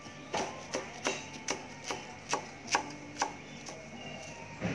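A cleaver chopping wild betel leaves on a wooden chopping board: a steady run of knife strikes, about two and a half a second.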